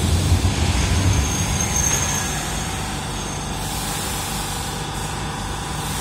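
Train in an underground station: a low rumble that fades over the first couple of seconds, then a steady hum with a few faint whining tones.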